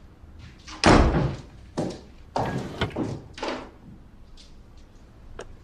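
A door banging shut about a second in, the loudest sound, followed by a few shorter knocks and scrapes.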